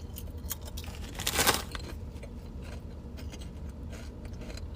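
Eating and handling sounds: small scattered clicks and rustling, with one louder rustle about a second and a half in, over a steady low hum.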